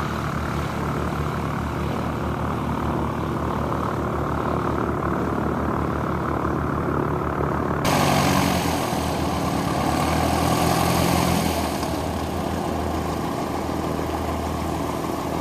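Light propeller plane's piston engine running steadily with a fast low throb. About eight seconds in, a steady hiss comes in suddenly over it.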